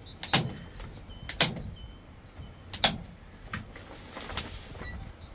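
A hand staple gun firing staples through dark building paper into wooden boards: three sharp snaps a little over a second apart, then a couple of fainter clicks, with the paper rustling under his hand near the end.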